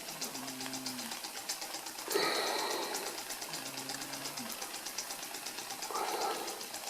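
Cyldon 13/2 model steam engine running with a fast, even ticking. A louder hiss swells up about two seconds in and again near the end.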